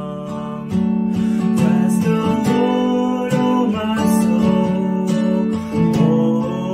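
Acoustic guitar strummed in a steady rhythm, with a man singing along. The strumming gets louder about a second in.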